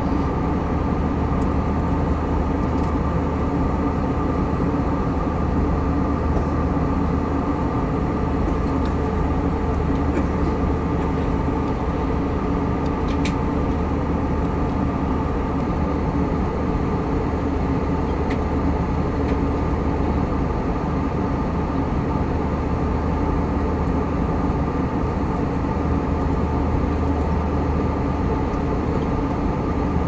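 Steady engine and airflow drone heard inside a passenger airliner's cabin in flight, with a constant low hum underneath.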